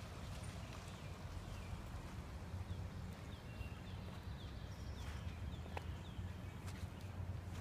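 Outdoor lawn ambience: a steady low rumble on the microphone, with a small bird chirping faintly a handful of times about halfway through and a few faint clicks.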